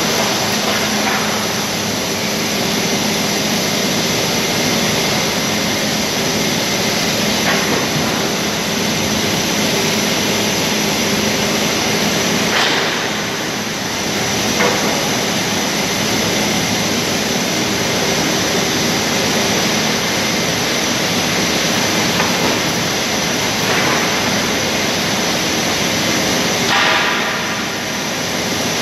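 Steady industrial din of lumber conveyors and chain transfers running, with occasional knocks and clatters of wooden boards.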